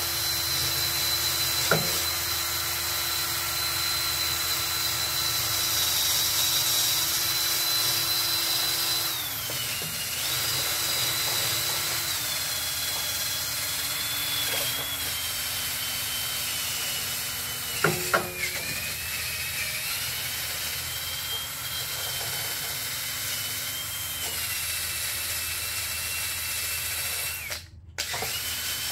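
Cordless drill spinning a wire brush wheel against an engine's metal head-gasket surface to clean it. Its whine steps down in pitch a few times, there are a couple of sharp knocks, and it stops briefly near the end.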